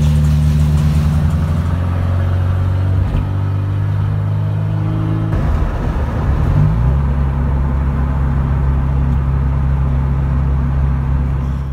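Engine running steadily at a low pitch. About six seconds in the pitch rises briefly, then it settles to a steady run again. It cuts off abruptly near the end.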